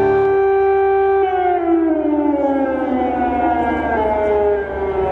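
Air-raid siren wailing: a held tone that begins to slide slowly down in pitch about a second in.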